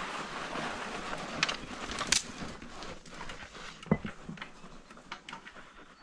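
Dog running on a rocky dirt trail, heard through a camera strapped to the dog: a rushing hiss of wind and movement noise that fades after about two seconds, with scattered clicks and knocks. The loudest knock comes about four seconds in.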